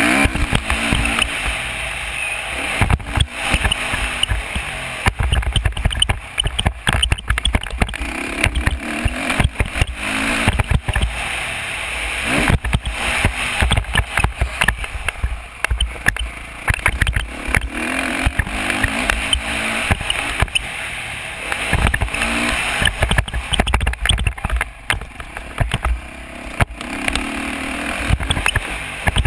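Dirt bike engine running hard around a motocross track, heard through heavy wind buffeting and frequent knocks on an onboard camera microphone.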